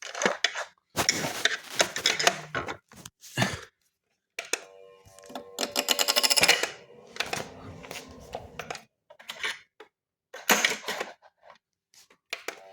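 Irregular clattering and knocking of hard objects being handled, with a fast rattle about five to seven seconds in.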